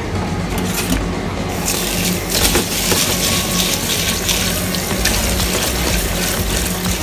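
Kitchen tap running into a bowl of rice in a stainless steel sink while a hand swirls the grains to rinse them. The rush of water grows louder about a second and a half in and then runs on steadily.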